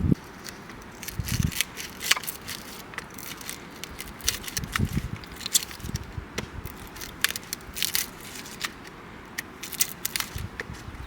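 Wood campfire crackling, with irregular sharp pops and snaps and a few soft low thuds.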